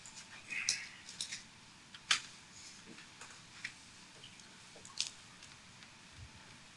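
Quiet room tone with a few scattered light clicks and taps, the sharpest about two seconds in.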